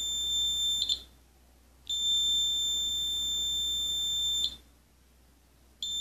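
Piezo buzzer of an Arduino Nano flame-sensor fire alarm sounding a steady, high-pitched alarm tone. The tone cuts out twice for about a second and comes back each time. The alarm has been set off by the flame sensor detecting the flame of a lit match.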